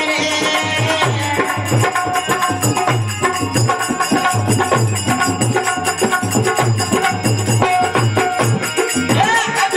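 Rajasthani folk devotional music. A harmonium holds a melody over a steady drum beat of about two strokes a second, with the jingle of small hand cymbals (manjira). A voice starts singing near the end.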